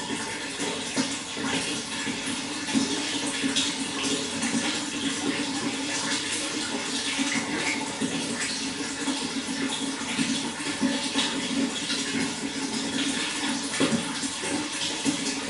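Running water, flowing steadily.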